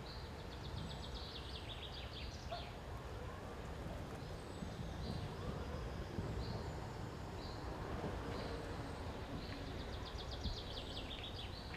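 Outdoor background with a low steady rumble and a songbird singing: a quick descending trilled phrase near the start and again near the end, with short high chirps between.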